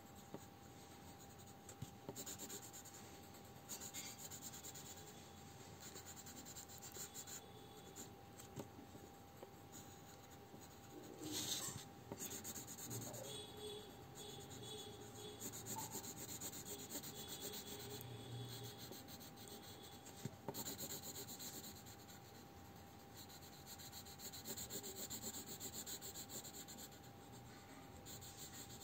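Graphite pencil shading on paper: faint, repeated back-and-forth scratching strokes that come and go as the blocks of a drawn scale bar are filled in.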